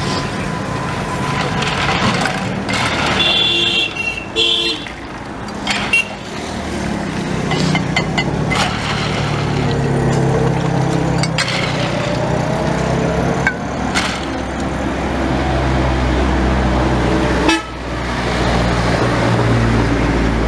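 Roadside traffic noise with a vehicle horn honking twice about three to four seconds in, over a steady low engine drone that grows louder in the second half. A few sharp knocks are scattered through it.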